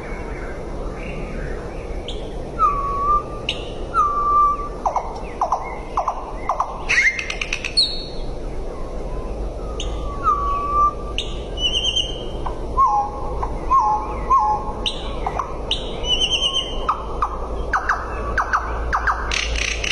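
A bird calling in a varied series of short whistled notes, quick downward-sweeping calls and brief chirps, a few seconds apart, over a steady low hum.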